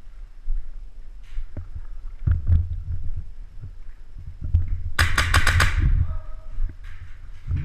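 Airsoft rifle firing a quick burst of about six sharp shots, about five seconds in. Dull thumps of movement and footsteps run through the rest.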